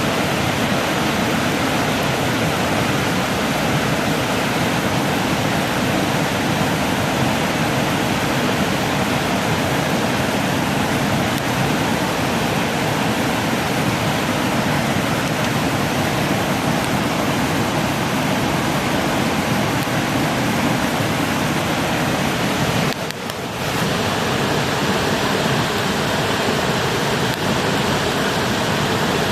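Steady rush of a stream or river flowing, an even noise that dips briefly about three quarters of the way through.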